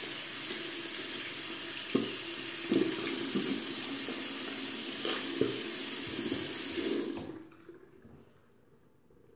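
Water running from a bathroom sink faucet into the basin as a toothbrush is rinsed under it, with a few short knocks. The tap is turned off about seven seconds in and the running water stops.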